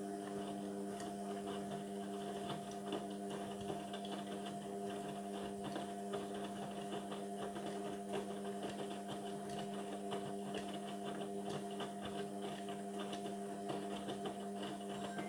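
Indesit washing machine's drain pump running with a steady electrical hum and a faint crackle of water and air through it, the machine pumping out water mid-cycle.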